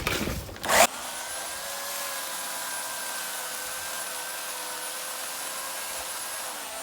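Electric chainsaw cutting through the base of a cherry stump, starting about a second in and then running as a steady whine; its pitch sags slightly near the end.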